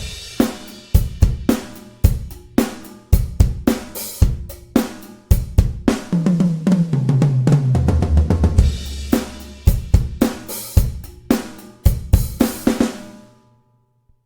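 Sampled acoustic drum kit from the Toontrack EZdrummer 3 plugin playing a groove of kick, snare, hi-hat and cymbals. About halfway through there is a fill of low drum hits stepping down in pitch, then the beat returns and ends with the cymbals ringing out.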